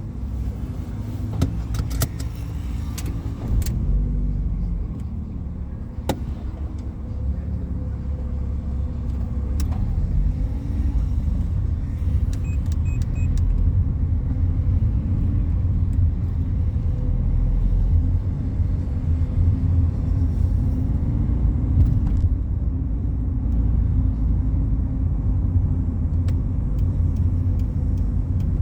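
Fiat Palio Fire heard from inside the cabin on a highway: a steady low engine and road rumble. The engine note shifts in the first ten seconds, then settles into a cruise that slowly grows louder. A few sharp clicks and rattles sound in the first seconds, and three short faint beeps come about halfway.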